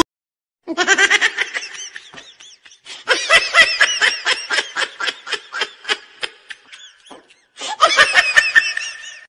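Hearty human laughter in quick repeated 'ha' pulses, coming in three bouts with short breaks between them; the middle bout is the longest.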